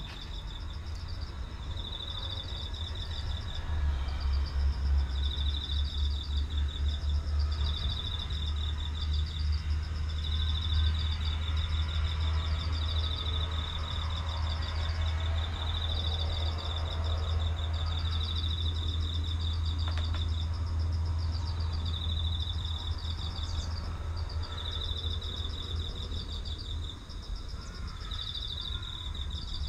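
Repeated high-pitched chirping trills, two steady pitches taking turns in short phrases, over a steady low rumble.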